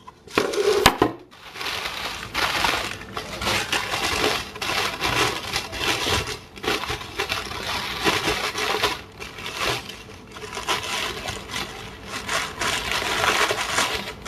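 Cardboard box and packaging being handled and opened: continuous irregular rustling and crinkling, with one loud sharp snap about a second in.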